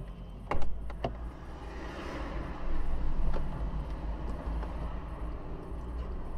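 Steady rumble of traffic passing on a dual carriageway, heard from inside a stopped car, with one passing vehicle swelling louder and fading away between about two and three seconds in. Two sharp knocks sound about half a second and one second in.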